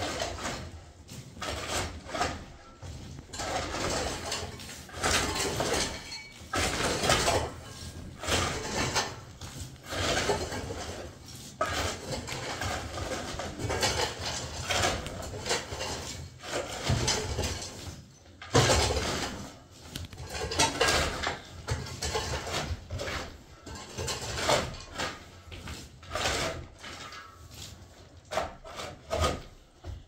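Long-handled shovel blades scraping and scooping loose soil across an earth floor being levelled, in repeated strokes at an uneven pace, one louder scrape a little past halfway.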